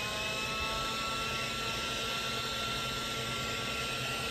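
Handheld electric heat gun running steadily, its fan motor whining over the rush of blown air, as it heats a sticker to soften the adhesive.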